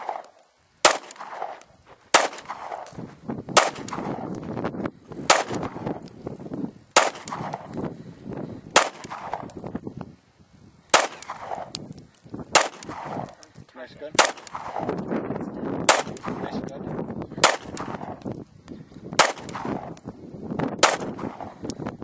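A handgun fired in a slow, steady string of single shots, about a dozen, one every second and a half to two seconds with a slightly longer pause near the middle, each crack followed by a brief echo.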